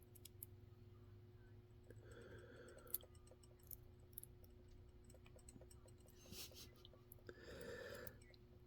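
Faint, scattered small metallic clicks of a lock pick and tension tool working the pins inside a lock, the loudest about three seconds in, with a couple of soft handling rustles.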